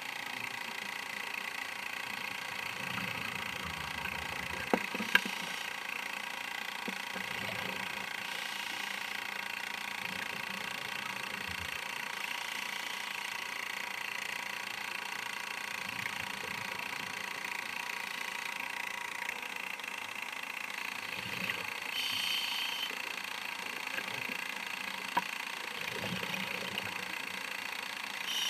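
Underwater sound picked up by a camera in its housing during a scuba dive: a steady hiss and hum, with low rumbles of the diver's exhaled regulator bubbles every few seconds and a few sharp clicks.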